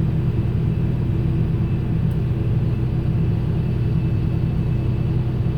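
Farm tractor engine running steadily under work, a low, even drone.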